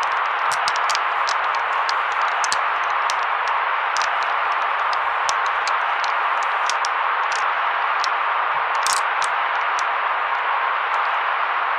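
Steady white noise: an even, unbroken hiss centred in the middle of the range, with light scattered crackles and ticks over it.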